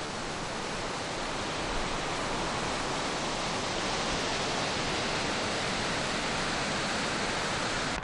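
Steady rushing of a fast mountain river.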